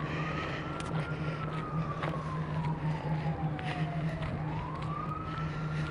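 A siren wailing in slow cycles, each rising quickly and then falling slowly, about every four seconds, over a steady low hum.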